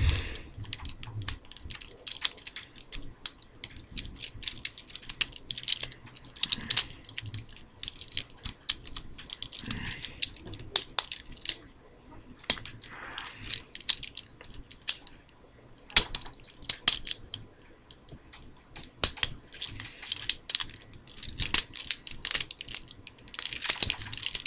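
Hard plastic parts of a Transformers War for Cybertron Optimus Prime action figure clicking, snapping and rattling as it is twisted and folded by hand into vehicle mode, with soft rustling of handling between the clicks.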